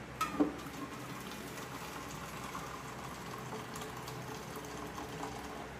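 A few light knocks, then a steady watery hiss.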